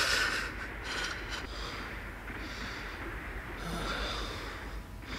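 Heavy breathing: several noisy breaths roughly a second apart, over a steady low hum.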